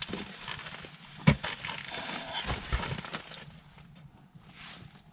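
Rustling of clothing as a jacket is taken off, with one sharp knock a little over a second in; the rustling dies down after about three seconds.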